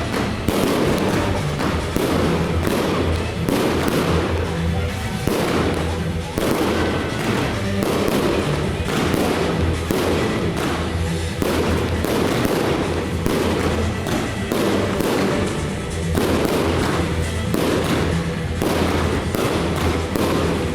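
Firework display going off: a rapid run of bangs and crackle, one after another with no pause, over music with a steady bass line.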